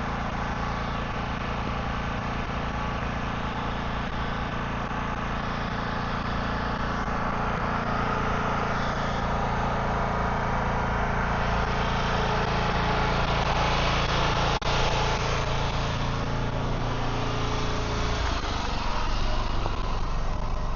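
An engine running steadily, with a brief dropout about two-thirds of the way through.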